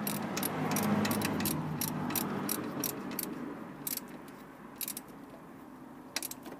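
Socket ratchet clicking as the alternator's front mounting bolt is tightened down after belt adjustment, in quick runs of clicks that thin out after about four seconds.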